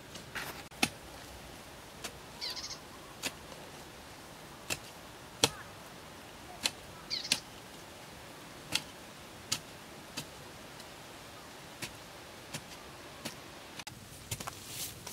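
Wooden-handled digging tool chopping into packed earth to dig out a burrow: sharp single strikes at irregular intervals, roughly one a second.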